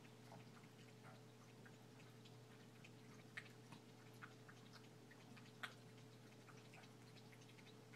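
Near silence: a steady low hum with faint, irregular small clicks scattered through it, two of them a little louder about a third and two thirds of the way in.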